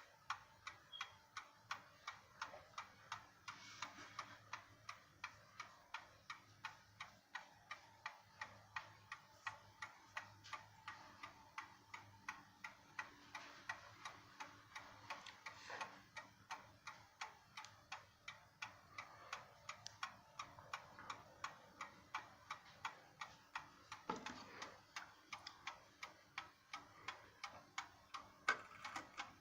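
Ansonia No. 48 Cabinet mantel clock's 8-day movement ticking faintly and steadily, a regular even beat.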